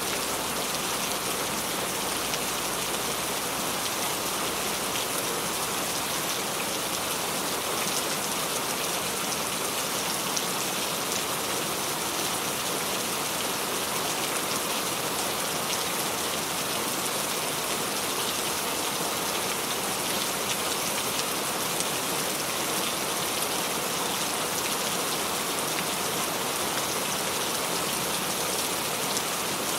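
Steady rain falling, an even hiss with fine patter of drops on a surface.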